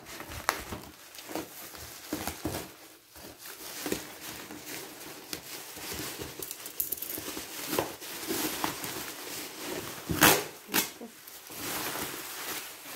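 Scissors cutting through plastic bubble-wrap packaging, with irregular crinkling and rustling of the plastic. About ten seconds in come two louder rustles as the wrap is pulled away from the cardboard box.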